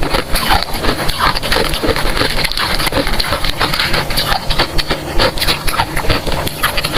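Freezer frost being bitten and chewed, a dense run of crisp crunching crackles close to the microphone.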